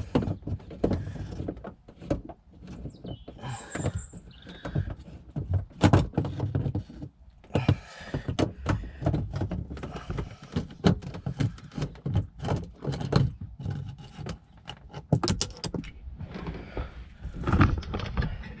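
Irregular clicks, knocks and rattles of hand tools and plastic interior trim being worked on, as a loose 10 mm screw is undone and the panel handled.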